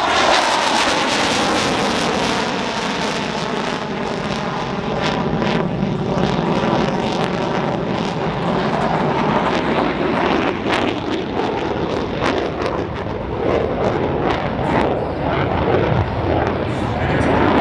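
EA-18G Growler's twin General Electric F414 turbofan engines at high power as the jet flies past and turns overhead: a loud jet roar whose pitch drops as it passes near the start, then a rough crackling from the exhaust through most of the rest.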